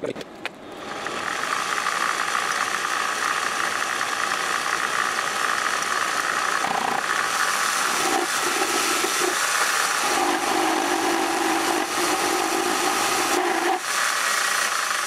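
Vevor 7x14 mini metal lathe running, its chuck spinning at about 800–900 rpm while a small turning tool takes a cut on the workpiece, the light machine shaking as it works. The sound comes up about a second in, a lower steady tone joins from about eight seconds and stops shortly before the end, and the whole sound falls off right at the end.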